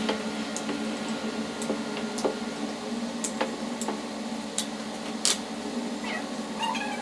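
Scattered light clicks and taps of kitchen utensils as parathas are made, over a steady low hum.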